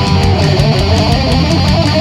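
Heavy metal band recording led by electric guitar, with a melodic line stepping from note to note over a dense, loud backing.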